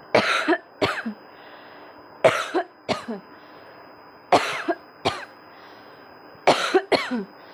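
A woman coughing repeatedly for a cough challenge: four bouts about two seconds apart, each a sharp cough followed by a shorter second one.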